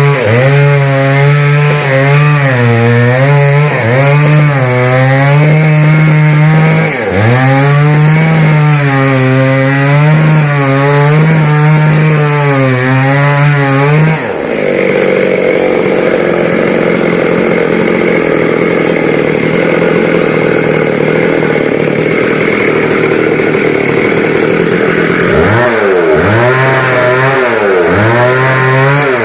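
Two-stroke chainsaw revving in repeated throttle blips, then cutting into wood for about ten seconds from around halfway, its note going rougher under load, then revving up and down again near the end.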